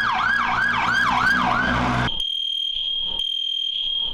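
Emergency vehicle siren in fast yelp mode, its pitch sweeping up and down about twice a second. It cuts off about two seconds in and gives way to a steady high-pitched electronic tone.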